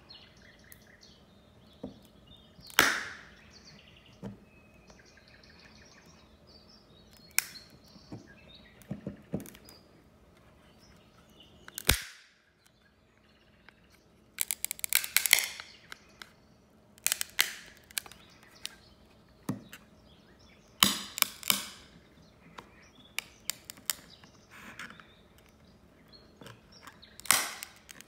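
Hard plastic Beckett (BGS) graded card case being pried apart with a flathead screwdriver twisted in its seam: sharp plastic cracks and snaps. They come singly and in quick runs of several, with quiet stretches between, the densest about halfway through and near the end.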